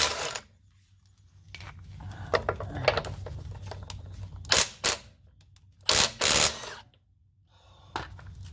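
The loud hammering of a Milwaukee Gen 3 impact driver cuts off right at the start, followed by clicks and knocks from handling the tool and socket, with a few short, sharp bursts in the middle and near the end.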